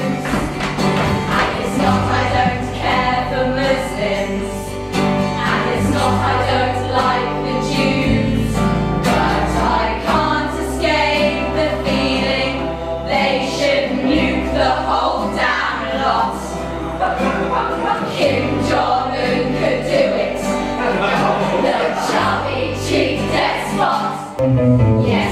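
Live musical-theatre song: a group of young women singing together over acoustic guitar, with a steady low bass line that changes note every second or two.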